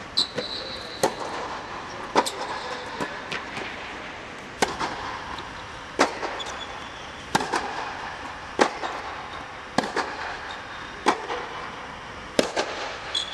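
Tennis rally: the ball is struck by the rackets and bounces on the hard court, giving a sharp pop about every second and a quarter, each with a short echo off the air-dome hall. A brief high squeak comes just after the start and again at the end.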